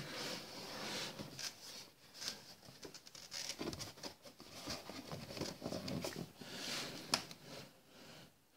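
Large cardboard box handled and turned round on a table: irregular rustling and scraping of cardboard, with a sharp tap about seven seconds in.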